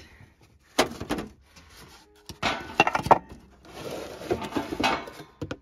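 Clatter and knocking of junk being shifted by hand: plastic bottles, a lid and other debris knocked against each other, in three short bursts.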